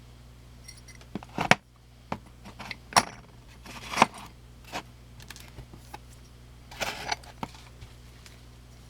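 Titanium knife scales clicking and clinking as they are handled: a handful of sharp metallic clicks, the loudest about a second and a half, three and four seconds in, and a quick cluster near seven seconds.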